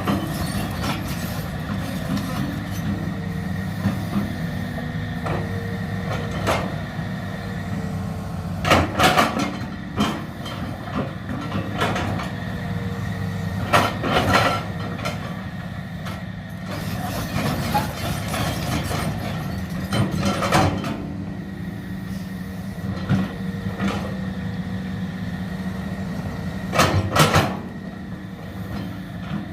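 Hydraulic excavator's diesel engine running steadily, with bursts of metallic clanking and scraping about every six seconds as it works.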